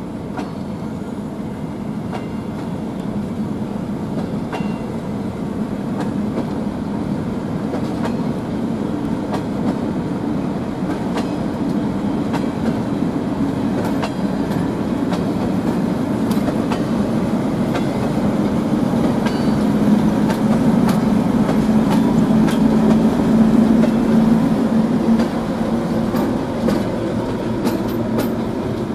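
ČD Cargo class 742 diesel locomotive's engine running as it moves a rake of open freight wagons slowly, with scattered clicks from the wheels over the rail joints. The engine note grows steadily louder, loudest about two-thirds of the way through, then eases slightly.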